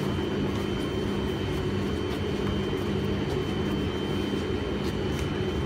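Steady drone of a London Underground Victoria line train (2009 Stock) standing at the platform, its equipment giving a constant low hum and a thin high whine.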